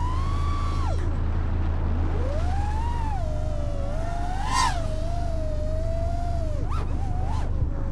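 Brushless motors of a 5-inch FPV freestyle quadcopter whining, the pitch following the throttle: high at first, cut about a second in, climbing again, a brief sharp punch near the middle, then a steadier cruise with a short blip near the end.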